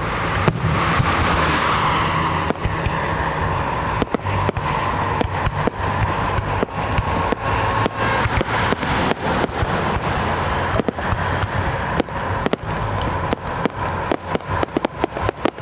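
Aerial fireworks shells bursting: a run of sharp bangs and crackles that come thicker and faster toward the end, over a steady low hum.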